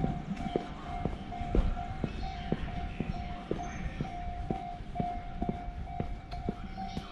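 Railway level-crossing alarm ringing: one repeated tone pulsing about twice a second.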